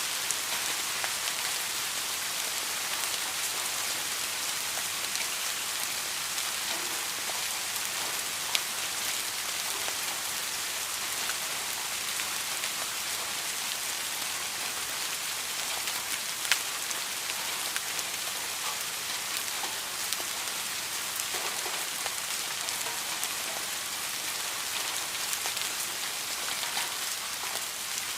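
Steady rain falling, a dense even patter of drops with a couple of sharper single drop hits.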